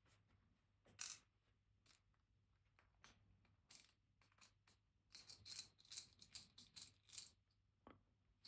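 Faint clicks and small rattles of metal lock parts being handled while the Kaba Titan Combi cylinder is taken apart, its screws being removed. One sharper click comes about a second in, then a quick run of light clicks in the second half.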